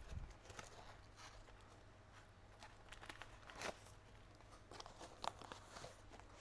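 Faint crinkling and rustling with a few light sharp clicks, as a parcel is unwrapped and handled by hand.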